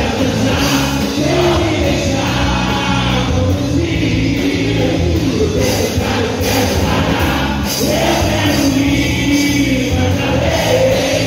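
Upbeat Christian worship song with group singing over a steady beat, played loud enough to dance to.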